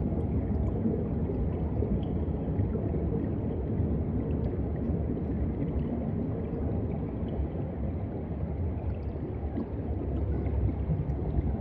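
Steady underwater ambient noise: a low, even wash of water movement with a few faint scattered clicks.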